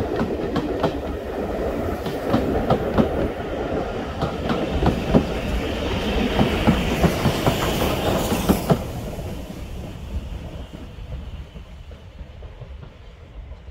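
Railway carriages rolling past with a steady clickety-clack of wheels over the rail joints and a low rumble. A hiss of steam comes with the steam locomotive at the rear, then the sound fades away after about nine seconds as the train moves off.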